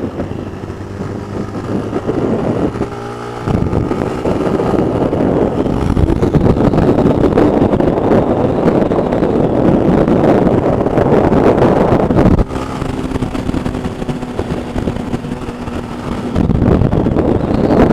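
Honda CG 160 Fan motorcycle riding on the road: its single-cylinder engine running under heavy wind rush on the microphone. The wind drops about twelve seconds in, leaving a steady engine note, then swells again near the end.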